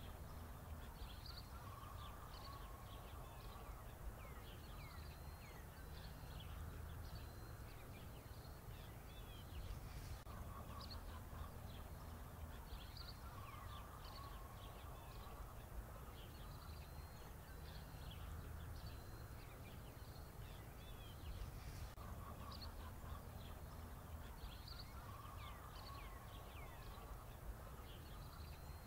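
Faint birdsong ambience: short chirps and calls over a steady low hum, the same pattern of calls recurring about every eleven seconds like a looped background track.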